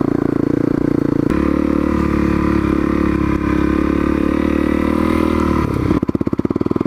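Honda CRF250L's single-cylinder four-stroke engine running steadily under throttle, picking up a little about a second in. Near the end it drops off throttle to slower, separate engine beats.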